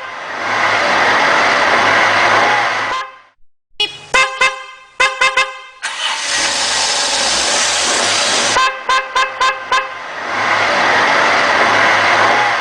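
Car horn beeped in quick runs of short toots, twice. Between the runs are stretches of loud, steady rushing noise.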